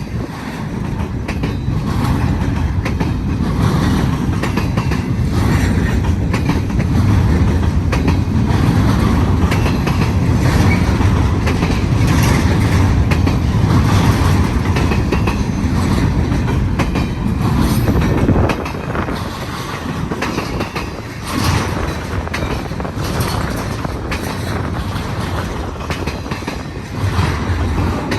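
BNSF intermodal freight train of domestic containers passing close by on the main line: a loud, steady rumble of wheels on rail with clickety-clack. The rumble dips briefly about two-thirds of the way through.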